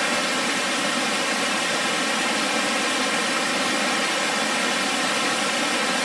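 Purakaunui Falls, a cascading three-tiered waterfall, rushing steadily as an even hiss of falling water.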